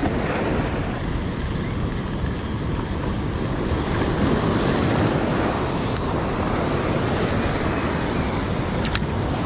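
Steady wind buffeting the microphone over surf washing against a rock jetty, swelling a little midway, with a couple of small clicks.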